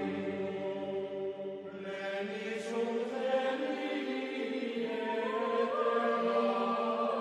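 Chant-like vocal music: long held notes that step slowly to new pitches.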